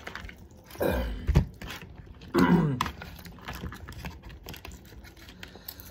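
Two short voice sounds, a murmur or half-word, in the first three seconds, over light clicks and crackles of food being handled and eaten at the table, such as crab shells being picked apart; the clicking continues more quietly after that.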